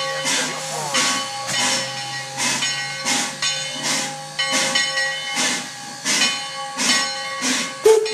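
Steam locomotive venting steam and water from the bottom of its boiler in a blowdown. The loud hiss swells in regular surges about twice a second over a steady whistling tone, with a short knock near the end.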